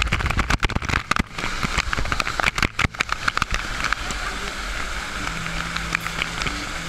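Waterfall pouring directly over the camera: water drums and crackles on the microphone, choppy with sudden dropouts for the first few seconds, then settling into a steady rush.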